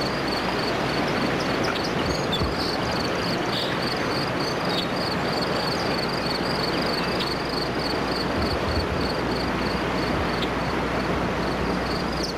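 Steady rush of the Deschutes River's fast, choppy current and riffles. A faint, high insect chirp repeats evenly about three times a second.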